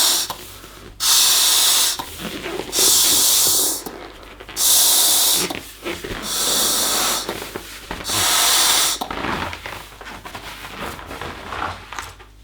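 A rubber balloon being blown up: a run of short hissing bursts of air about every two seconds. After about nine seconds the bursts stop and softer rubbing noises follow.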